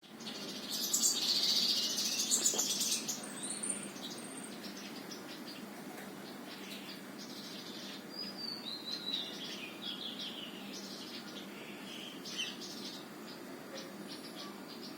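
Sunbirds calling: a dense burst of rapid high chirps in the first three seconds, then scattered sharp chirps and a run of short falling high notes, over a steady low background hum.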